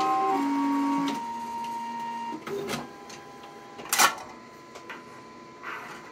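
Plastic ID-card printer running, its motors whining in steady tones that step down in pitch before stopping. About four seconds in, the printed plastic card drops into the output hopper with a sharp clatter, and a few lighter clicks follow near the end.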